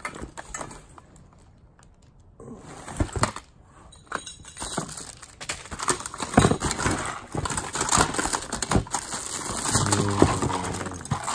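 Hands rummaging through a cardboard box of mixed belongings: plastic bags and packaging crinkling and rustling, with scattered light knocks and clinks as objects are shifted. It is quieter for the first couple of seconds, then the rummaging grows busier.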